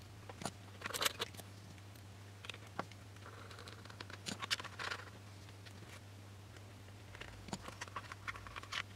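Scattered light clicks, taps and short scrapes of hands fitting a servo into a model glider fuselage and turning a small screwdriver, over a faint steady hum.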